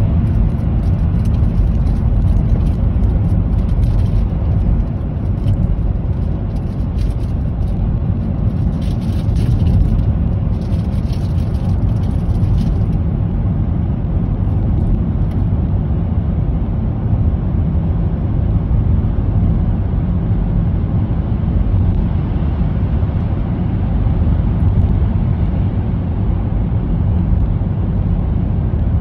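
Car road and engine noise heard from inside the cabin while driving through a road tunnel: a steady low rumble that stays level throughout.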